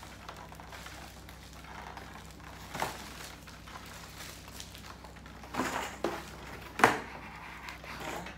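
Clear plastic wrapping crinkling as it is pulled off a flat panel, with a few sharper crackles, the loudest about seven seconds in.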